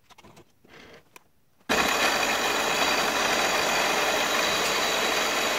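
Milling machine cutting a hole into an aluminium block with an end mill: faint crunching of the cut at first, then about two seconds in the sound jumps suddenly to a loud, steady machine noise with a high whine.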